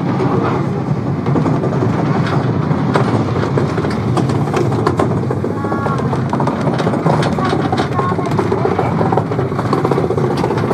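Rail vehicle running on its track: a steady rumble with frequent rattles and clicks from the wheels and carriage.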